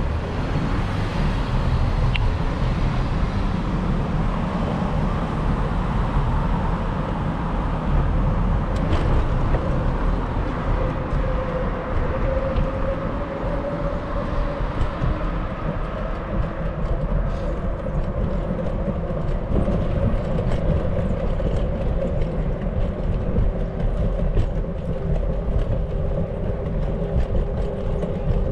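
Steady deep rumble of wind and road noise while riding a bicycle through city streets. From about ten seconds in, a passing vehicle adds a steady hum.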